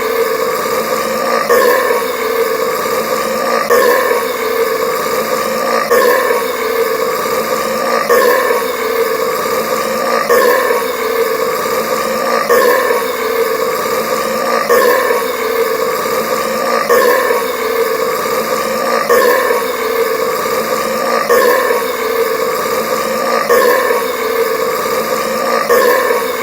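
A man burping loudly and continuously after chugging carbonated Sprite Cranberry, the same deep belch pattern recurring about every two seconds.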